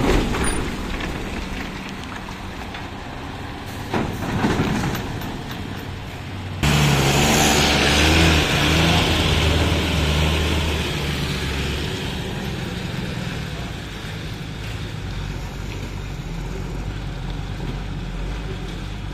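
Heavy Tata diesel trucks passing close by at low speed over a rough, wet road. About six and a half seconds in, a louder diesel engine comes in suddenly with a low hum, then slowly fades as the tipper pulls away.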